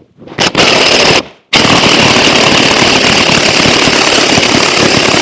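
Impact wrench hammering in a short burst, then again without a break from about a second and a half in, turning a ball joint press screw to push the old rubber bushing out of a leaf spring eye.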